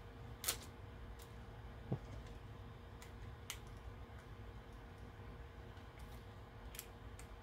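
Light, scattered clicks and taps of small screws and plastic parts handled by hand as screws are set into a plastic GPS mast. A few sharper taps come in the first two seconds.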